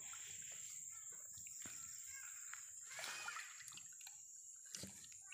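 Faint sloshing and splashing of water as hands rub and rinse pieces of fish in a plastic basin.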